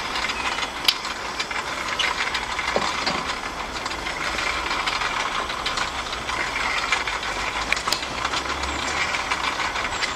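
A steady hiss with a few light clicks and taps from the wire grill rack as pitta breads are laid on it over hot charcoal.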